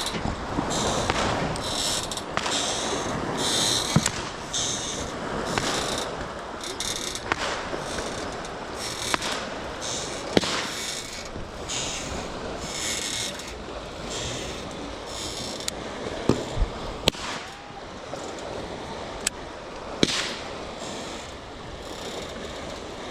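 Fireworks and firecrackers going off: sharp pops at irregular intervals and short bursts of crackling, over a steady background hiss.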